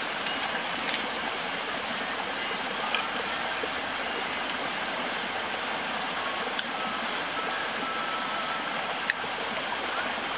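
Steady rushing background noise, with a few faint, light clicks of wooden chopsticks against a bowl.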